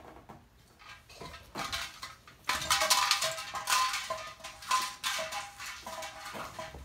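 Small plastic toys clattering and rattling, with musical tones from a toy sounding through the clatter, loudest from about halfway in.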